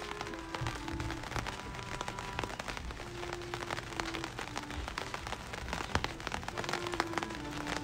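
Slow background music of long held notes that step from one pitch to the next, over a dense, steady crackling patter.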